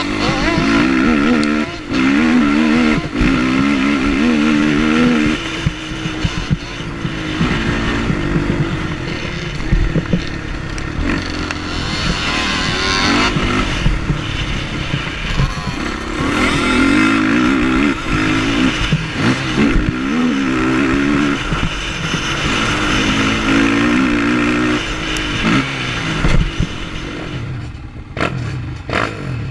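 Sport quad engine heard on board while racing on a dirt motocross track, revving up and falling back again and again as the throttle is worked, with scattered knocks and rattles from the rough ground. The engine eases off near the end.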